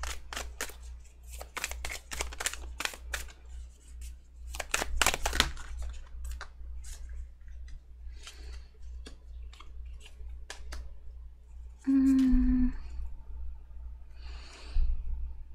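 Tarot cards handled and shuffled by hand: a quick run of card clicks and slaps for about the first six seconds, then sparser taps as cards are drawn and laid down. A short hummed 'mm' about twelve seconds in, and a brief rustle near the end.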